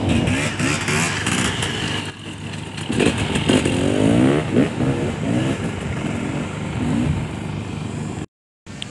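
Off-road enduro motorcycle engine revving, its pitch rising in repeated climbs from about three to five seconds in.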